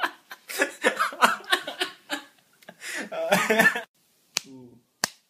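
Voices talking and laughing for the first few seconds, then, after a short silence, two sharp slaps a little over half a second apart: a hand smacking bare buttocks, with a short vocal sound after the first slap.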